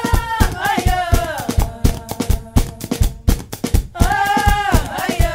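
Batuku: women beating rolled cloth pads (tchabeta) held between their knees in a steady fast beat of sharp slaps, about three to four a second. A voice sings a drawn-out phrase over it at the start and again about four seconds in.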